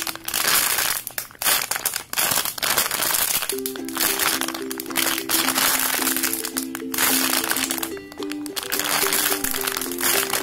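Clear plastic bag crinkling loudly, again and again, as a cake-shaped squishy inside it is squeezed by hand. A simple background melody comes in about three and a half seconds in.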